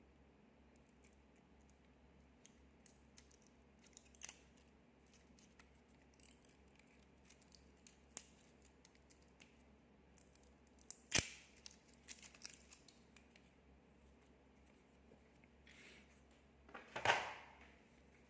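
Light clicks and taps of small parts and tools being handled, with one sharp click about eleven seconds in and a short scraping rustle near the end.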